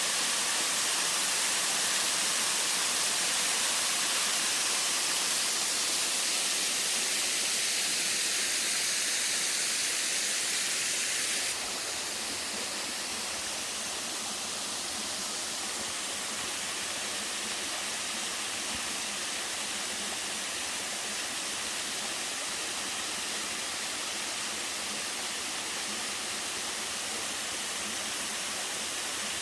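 Waterfall rushing steadily, an even hiss of falling water. About a third of the way through the sound changes abruptly to a slightly quieter, less hissy rush.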